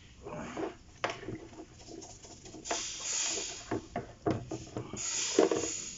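Greasy EGR parts being washed by hand in a tub of gasoline: liquid splashing and scrubbing, with scattered knocks of metal parts against the container. Two longer spells of splashing and scrubbing come about three and five seconds in.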